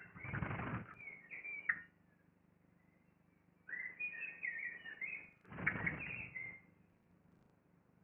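Eurasian blackbirds at the nest: two close bursts of wing flapping and rustling, about a second each, near the start and past the middle, with short high twittering calls around them.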